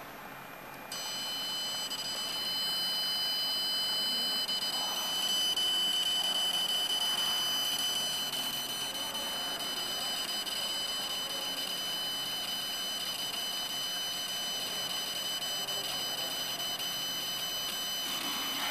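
CNC laser engraving machine running while it engraves black stone: a steady high-pitched whine of several tones sets in about a second in and holds, over a steady rushing noise.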